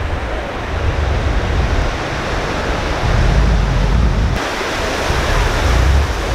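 Surf washing onto a beach, a steady dense hiss, with wind buffeting the microphone in low rumbling gusts. The hiss changes abruptly about four seconds in.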